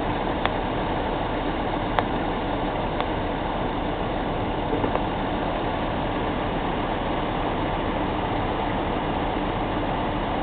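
John Deere tractor's diesel engine running steadily, with a few sharp clicks in the first three seconds.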